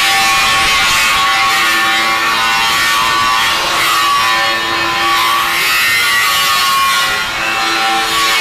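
Power tool grinding on steel pipe: a steady, loud, noisy whine whose pitch dips and recovers as the tool is pressed against the metal.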